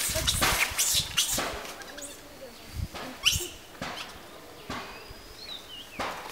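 Macaques fighting: harsh screeches and crashing through dry leaves in the first second and a half, then a few shorter, fainter calls.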